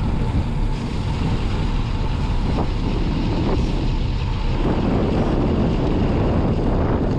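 Wind buffeting the microphone: a steady low rumble that thickens about halfway through.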